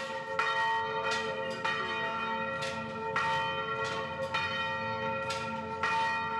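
Church bells ringing at noon, struck again every half second to a second, several tones sounding together and ringing on between strikes.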